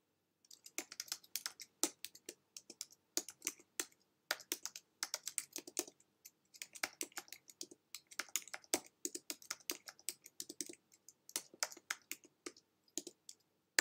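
Typing on a computer keyboard: quick, irregular runs of keystrokes with short pauses between them.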